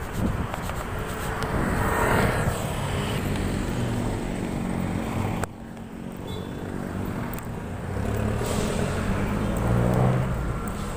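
City street traffic: cars and motorcycles driving past, a steady engine and tyre hum with vehicles swelling louder as they pass, about two seconds in and again near the end. The level drops suddenly a little past halfway, then a nearby engine hums steadily.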